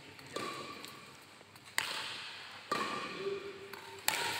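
A badminton doubles rally: four sharp racket hits on the shuttlecock, one to one and a half seconds apart, each with a short ring and hall echo.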